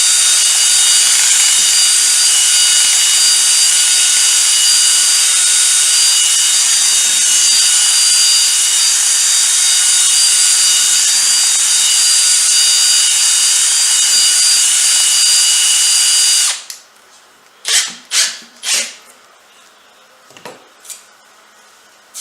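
Power drill turning a mixing rod in a jug of silicone thinned with mineral spirits, running steadily at full speed with a constant whine, then stopping about sixteen seconds in. A few short loud bursts follow shortly after.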